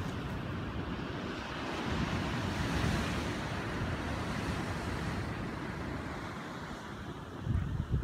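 Wind blowing across the microphone over the wash of the sea breaking below the cliffs, a steady rushing noise with stronger gusts near the end.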